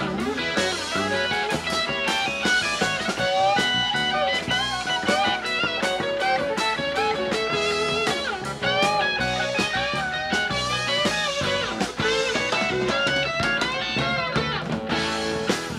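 A live rock band's instrumental break: a lead electric guitar plays a solo of bending, sliding notes over bass and drums.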